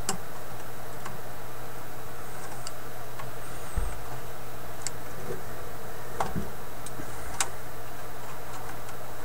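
Scattered small clicks and taps of hand tools working in a tube radio chassis while a replacement filter capacitor is soldered in, a second or more apart, over a steady low hum.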